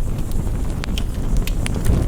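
Campfire crackling, with several sharp pops over a steady low rumble, in a rain-and-fire ambience mix.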